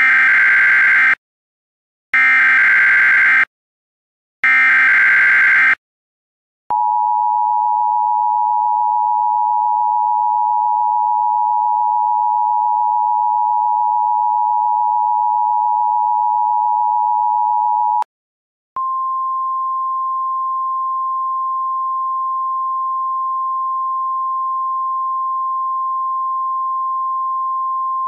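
Emergency Alert System alert tones: three short bursts of SAME header data, then the EAS two-tone attention signal held for about eleven seconds, then after a brief gap a single steady, slightly higher tone, the 1050 Hz weather-radio alert tone, for about ten seconds.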